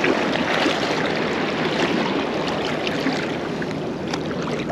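Fast, shallow river rapids rushing steadily around a wading angler, an even wash of water with scattered faint ticks.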